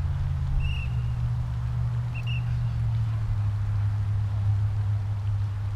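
Wind buffeting the camera's microphone, a loud low rumble that rises and falls. Two short high chirps cut through it, about one and two seconds in.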